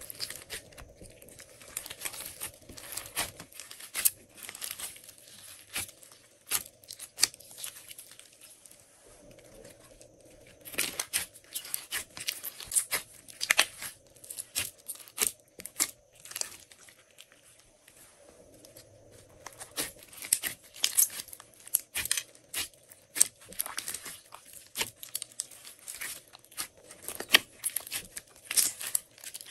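Hands kneading, pressing and pulling a large mass of glossy and fluffy slime mixed with clay and foam beads in a glass dish, giving irregular sticky crackles, clicks and squishes. The crackling comes in dense bursts with quieter stretches of slower squishing between.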